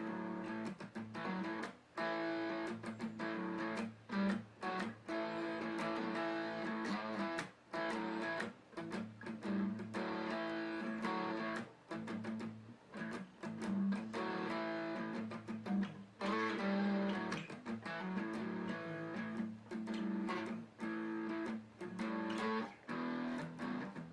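Guitar playing, picked notes and strummed chords ringing, broken by frequent brief gaps.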